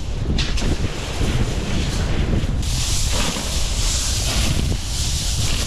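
Strong wind buffeting the microphone with an uneven low rumble. From about two and a half seconds in, a steady high hiss joins it.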